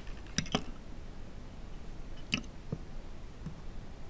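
Quiet handling sounds: a few small clicks and taps, two close together near the start and two more a little past the halfway point, as the cut end of the loom-knitted nylon cord collar is handled.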